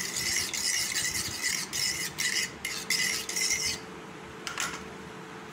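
Metal fork stirring a yogurt marinade in a ceramic bowl, scraping and tapping against the bowl in quick irregular strokes. The stirring stops about four seconds in.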